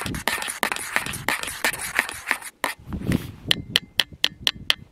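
Hands handling a small gas canister stove and its pot and cup while brewing up: crinkly rustling and scraping, then a run of about six sharp clicks near the end.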